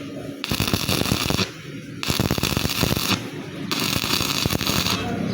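Electric welding arc crackling and sputtering in stretches of about a second, broken by short pauses as the arc is stopped and struck again.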